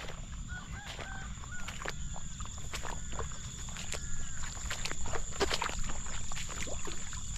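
Footsteps swishing and splashing through wet grass and shallow water along a paddy path, a stroke every fraction of a second. A few short, high arched animal calls sound in the first half, over a steady high insect drone.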